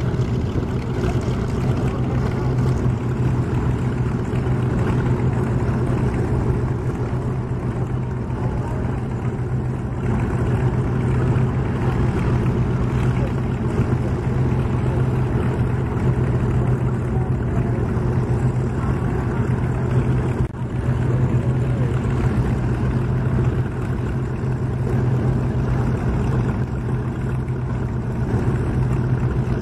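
Vintage piston aircraft engines idling on the ground, a loud, steady low drone that holds one pitch throughout.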